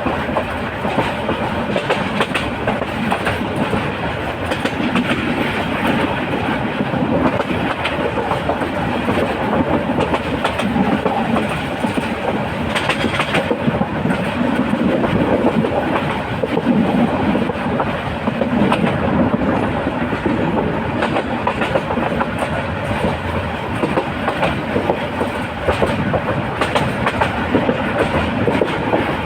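Moving train running on its rails, wheels clickety-clacking steadily over the rail joints with a continuous rumble.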